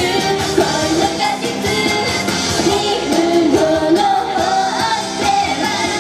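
Two girls singing a Japanese idol pop song into microphones over pop backing music, amplified through stage speakers.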